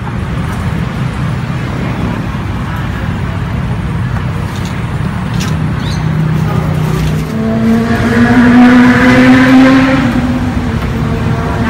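Street traffic running close by. A vehicle's engine hum rises slightly in pitch and is loudest about eight to ten seconds in.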